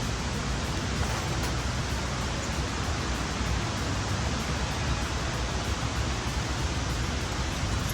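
Steady rushing wind noise, heaviest in the low end.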